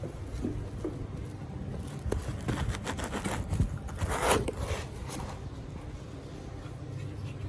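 Cardboard and plastic packaging being handled and unpacked: scraping and rustling with a few clicks, loudest a little past halfway, over a steady low hum.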